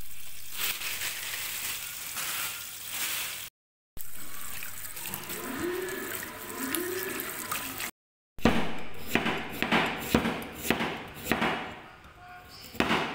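Tap water running onto leafy greens in a plastic colander in a sink, with hands rubbing the wet leaves. Then, about eight seconds in, a steel cleaver slices a carrot on a wooden chopping board in a quick run of sharp knocks.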